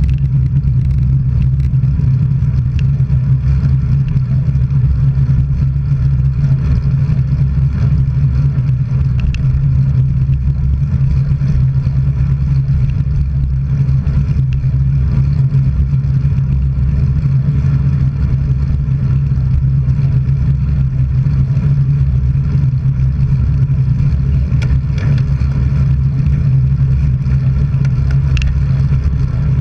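Steady low rumble of wind and road noise from travelling along the road, with a few faint clicks.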